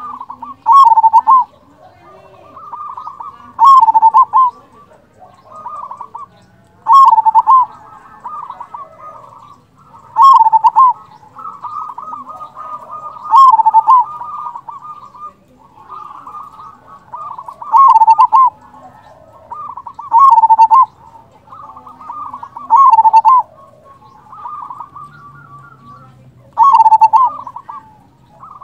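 Zebra dove (perkutut) cooing: a repeated phrase of soft rolling coos that ends in louder ringing notes, coming about every three seconds, nine times.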